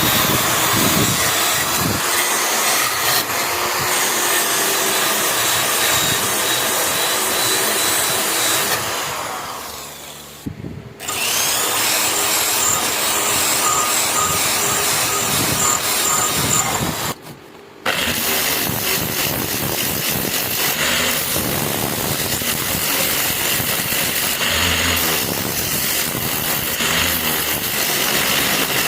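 Electric power tool running against a metal blade to strip rust. Its motor whine sits over a rough noise. It winds down about nine seconds in, spins back up, and cuts out abruptly for under a second a little past halfway.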